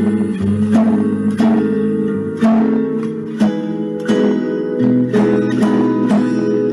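Acoustic guitar playing an instrumental passage, plucked chords over a bass line, with no singing.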